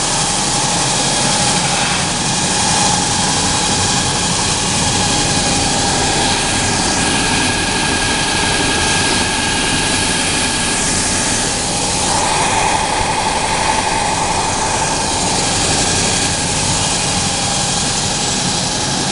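Wide-belt sanding machine running with a loud, steady hiss and a steady whine held through it.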